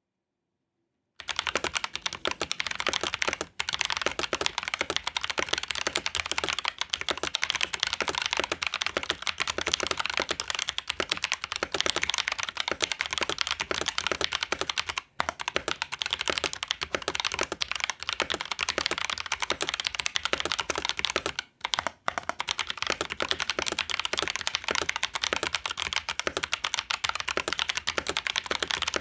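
Fast, continuous typing on a mechanical keyboard, an LK67 fitted with Momoka Shark heavy-bump tactile switches that are factory-lubed. The typing starts about a second in and stops only for a few brief pauses.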